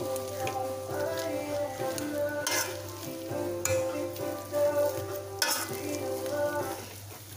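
Wire potato masher pressing and squishing boiled, buttered potatoes in a stainless steel pot, the metal masher scraping and knocking against the pot a few times, most sharply about two and a half, three and a half and five and a half seconds in. Quiet background music plays underneath.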